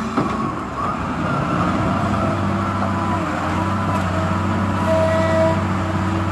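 Caterpillar 950F wheel loader's diesel engine running steadily under load as the machine drives forward carrying a full bucket of earth and rock. A brief higher tone comes in about five seconds in.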